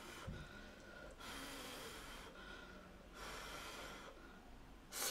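A person slurping instant ramyeon noodles off chopsticks: two soft, hissy slurps, then a much louder slurp starting near the end.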